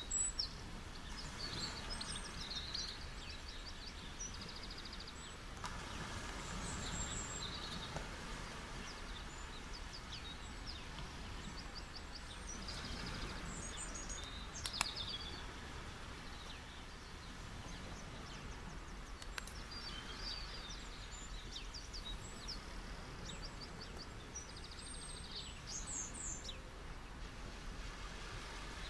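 Many small birds chirping and trilling in quick repeated notes over a steady low wash of soft surf that swells gently now and then. A single sharp click about halfway through.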